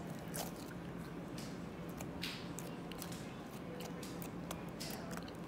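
Fluffy pink slime being squished and worked in the hands close to the microphone: scattered faint clicks and small wet pops, over a steady low hum.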